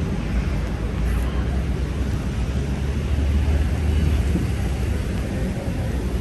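Steady low rumble of city traffic and engines, swelling slightly around the middle, over a constant haze of street noise.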